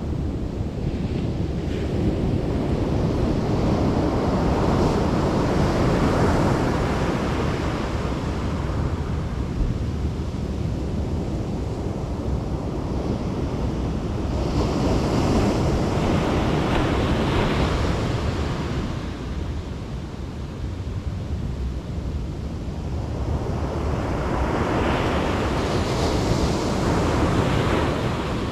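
Ocean surf breaking on the beach, swelling and fading in about three slow waves roughly ten seconds apart, over a constant low rumble of wind on the microphone.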